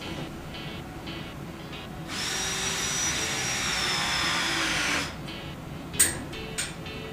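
A power tool runs steadily for about three seconds with a high whine that sags slightly in pitch, then stops abruptly; a sharp click follows about a second later. Background music plays throughout.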